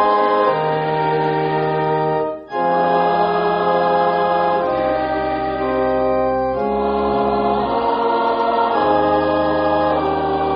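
Organ music: slow, held chords that change every second or two, with a brief break about two and a half seconds in.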